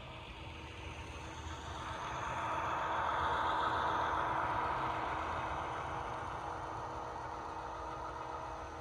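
HO scale model diesel locomotive's DCC sound decoder playing a diesel engine sound through its small speaker. It grows louder a couple of seconds in, peaks, then eases back to a steady run.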